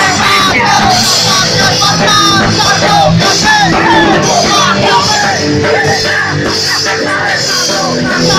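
Live punk rock band playing loud: shouted vocals over a full band with drums, heard from inside the crowd.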